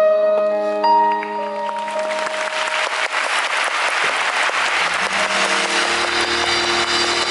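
The last held notes of the band's accompaniment fade out as a large arena crowd breaks into applause and cheering, which builds and then holds steady. About four and a half seconds in, a low sustained keyboard chord comes in under the applause.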